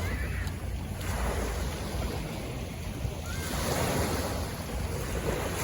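Pacific Ocean surf washing onto the beach, with wind buffeting the microphone as a low rumble. The wash swells again about three and a half seconds in.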